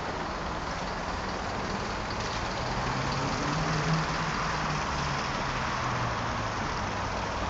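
Road traffic: a steady hum of passing vehicles, with a vehicle engine coming up in the middle and fading again.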